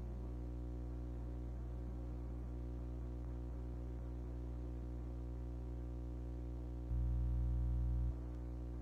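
Steady low electrical hum with an even, unchanging buzz, the unexplained humming the owner is asking about; it swells louder for about a second near the end, then drops back.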